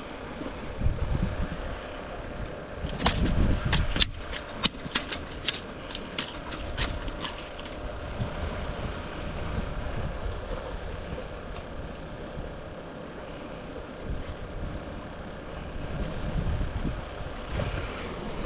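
Wind buffeting the microphone beside open water, in gusts. A quick run of sharp clicks and knocks comes about three seconds in and lasts a few seconds.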